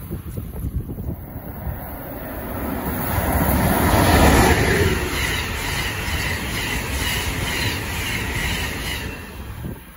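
Amtrak train hauled by an ACS-64 electric locomotive passing at speed: a rising rush that peaks and drops in pitch as the locomotive goes by about four seconds in, then the steady rhythmic clatter of the passenger coaches' wheels over the rail joints.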